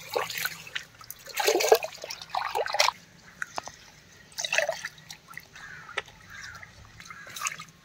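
Water poured and splashed over a stone grinding mortar (aattukal) as a hand rubs the wet stone clean, in several separate splashes.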